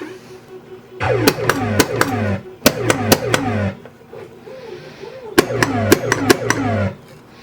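1980 Williams Scorpion pinball machine's electronic sound board firing three bursts of falling, sweeping synthesized sound effects, each with a low hum under it and a run of sharp mechanical clicks from the playfield mechanisms, with a short wavering tone between the second and third bursts.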